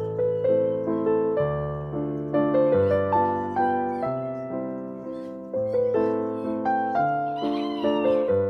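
Background piano music: a melody over chords, with notes struck and dying away in a steady, unhurried rhythm.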